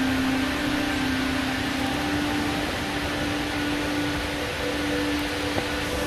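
Steady rushing of river rapids, with a steady low hum running through it.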